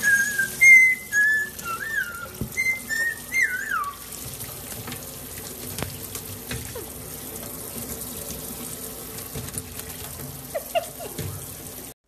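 Tap water running and splashing into a stainless-steel kitchen sink as small parrots bathe under the stream. In about the first four seconds a run of short whistled notes sounds over the water, some gliding downward.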